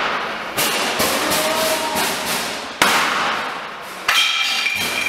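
A series of sudden loud bangs a second or two apart, each trailing off in a noisy rush over about a second.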